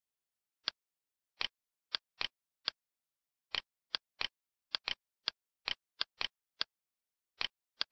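Computer mouse button clicks, single clicks and quick double clicks at irregular intervals, with dead silence between them.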